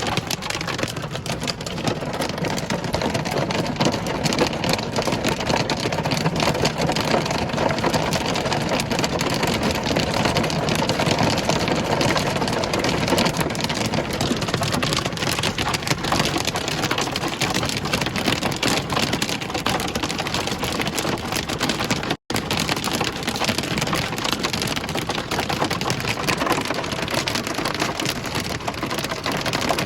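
Heavy hail pelting down in a dense, steady clatter of countless small impacts, like a downpour. It cuts out for an instant about 22 seconds in.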